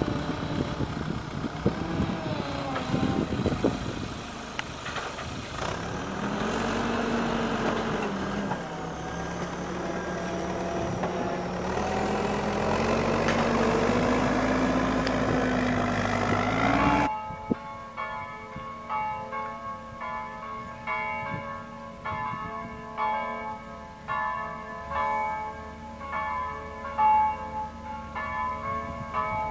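Engine running, its pitch falling and rising and climbing steadily toward the end. About two-thirds of the way through it cuts off abruptly, and chiming bells with many held, ringing tones and a regular beat take over.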